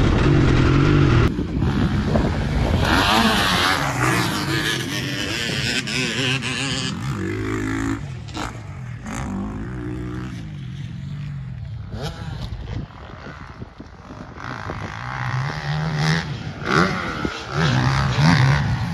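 A GasGas 350 MCF motocross bike's single-cylinder four-stroke engine being ridden hard around a dirt track, revs rising and falling with the throttle and gear changes. It is close and loud at first, then farther off and quieter, and swells again near the end as the bike comes back nearer.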